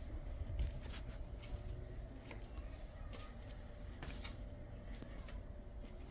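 Footsteps on cobblestone paving: short scuffs and clicks at an uneven pace, the sharpest about four seconds in, over a low steady rumble.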